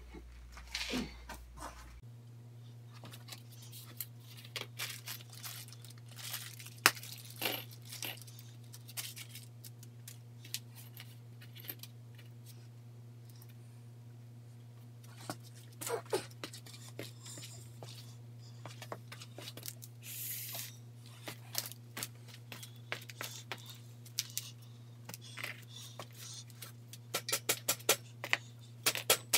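Scattered clicks, knocks and rustles of metal stand parts, bolts and a wrench being handled during hand assembly, over a steady low hum.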